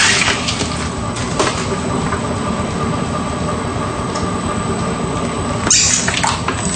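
A shredder running steadily with a constant motor whine. It breaks into short, loud grinding bursts at the start, about a second and a half in, and near the end, as the squishy toy is chewed through.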